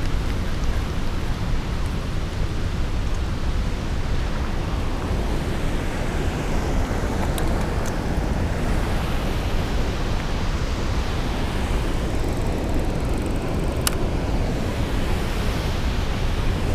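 Steady rushing of water pouring over a spillway, a loud continuous wash of noise. A few short clicks sound over it, the clearest near the end.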